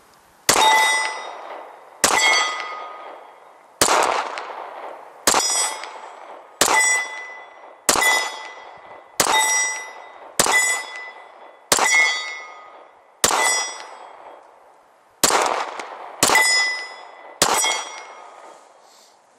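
Glock 23 .40 S&W pistol firing 13 shots in a steady string, about one every second and a half, with a longer pause about two thirds of the way through. Most shots are followed by a ringing tone as they die away. The slide is packed with snow, and the gun keeps firing, so the striker still works.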